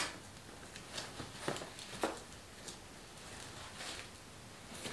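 Faint rustling of a soft fabric wrapping, with a few light clicks and knocks, as a speaker is pulled out of it and set down.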